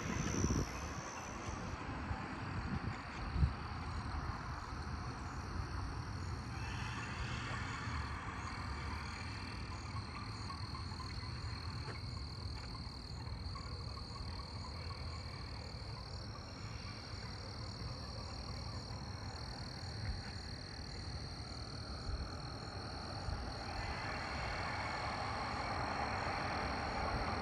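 Steady high-pitched night chorus of calling insects, a continuous trilling that holds on one pitch, over a low outdoor rumble.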